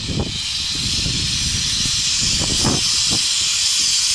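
Steam hissing hard from the cylinder drain cocks of LMS Stanier Black 5 steam locomotive 45305, steady and growing a little louder.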